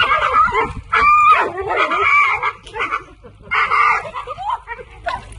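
A pit bull-type dog making funny duck-like vocal noises, a run of wavering, pitched calls in three or four bursts, the loudest and highest about a second in.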